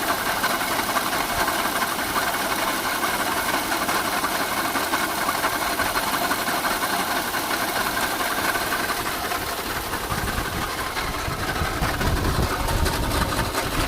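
An engine running with a fast, even rattle, the strange noise being recorded. A deeper rumble comes in about ten seconds in.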